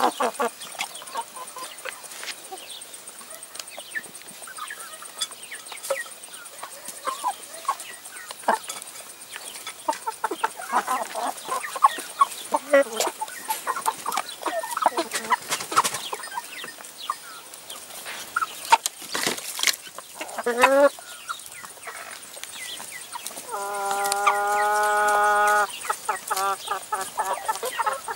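Chickens clucking as they feed, with many sharp pecking taps at chopped red peppers in a plastic tray. About three-quarters of the way through one bird gives a short rising call, then a single long, steady call of about two seconds, the loudest sound here.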